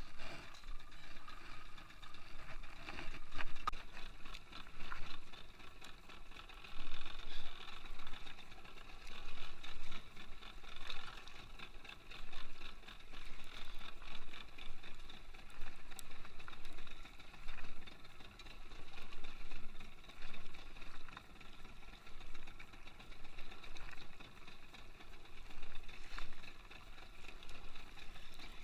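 A boat's engine running steadily at idle, rising and falling slightly every second or two.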